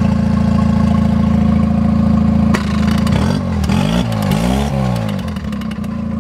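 Small Mercury tiller kicker outboard idling steadily, just after firing up on its push-button electric start. About two and a half seconds in, the engine sound wavers and sweeps up and down with a few clicks for about three seconds, then settles back to a steady idle near the end.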